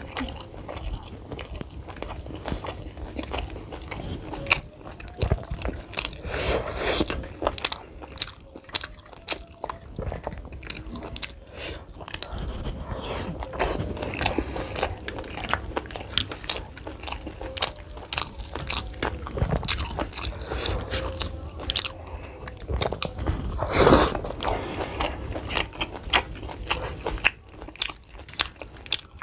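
Close-miked eating: irregular biting, crunching and chewing with wet mouth sounds as a man eats bhatura (fried bread) and momos, with one louder burst a little after three quarters of the way through.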